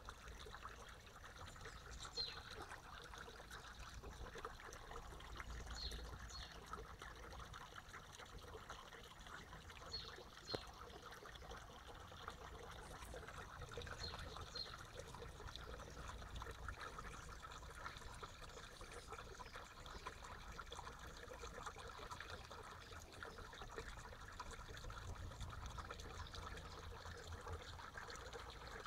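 Shallow woodland stream trickling steadily over leaves and stones, with a few brief high chirps, some in pairs, at intervals.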